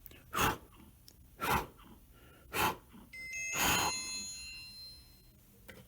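Four short hissing puffs about a second apart, then an electronic chime of several tones that starts about three seconds in and fades out over about two seconds, as the call is accepted on the phone.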